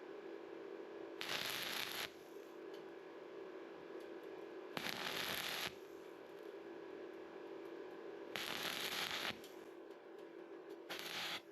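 Stick-welding arc from a 6013 electrode at 90 amps, struck in short stitches: four crackling bursts of about a second each, roughly every three and a half seconds. The stitches are laid onto a bare electrode resting in the joint of thin sheet metal. A steady low hum sounds between the bursts.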